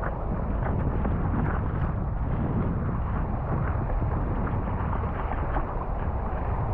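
Steady, dense rumble of wind buffeting the microphone at sea, with the wash of small waves mixed in.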